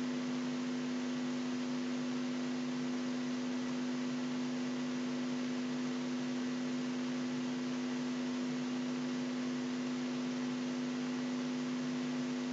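Steady electrical hum with one strong tone and a few fainter tones above it, over a constant hiss: background noise of the recording setup.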